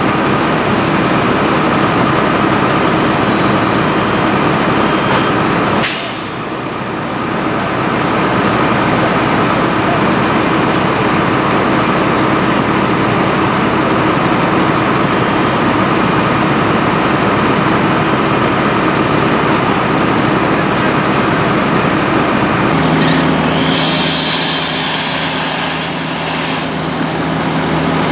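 Fire truck engines running steadily on the fire ground, a loud continuous drone. About 23 seconds in, a second, steadier engine note joins, with some high wavering sound over it.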